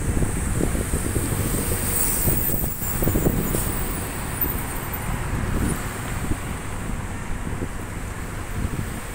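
Road and wind noise heard from a moving car on a highway: a steady, uneven low rumble with a faint hiss.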